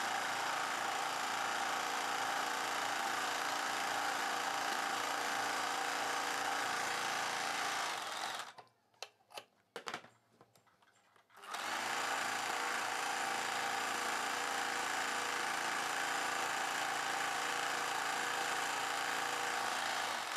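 Electric sewing machine running steadily while stitching a belt strip onto a sequined blouse back. About eight seconds in it stops for about three seconds, with a few faint clicks, then runs again.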